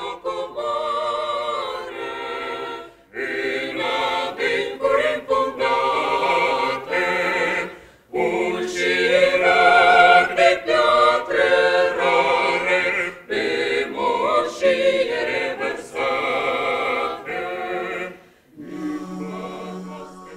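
A small mixed choir of men and women singing a song in parts, in phrases broken by short breaths, swelling loudest about halfway through. Near the end the singing stops and a short music sting begins.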